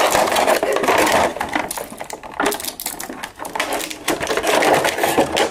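Clear plastic accessory bag crinkling and crackling as hands squeeze and pull at it, in two busy spells, one at the start and one about four seconds in.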